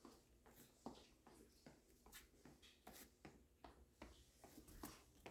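Near silence: room tone with faint, irregular light taps and scuffs.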